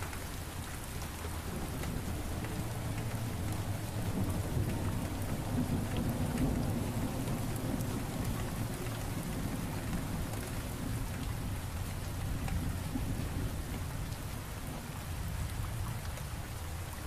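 Steady rain falling on pavement, a continuous hiss of drops, with a low thunder rumble that swells about four to seven seconds in.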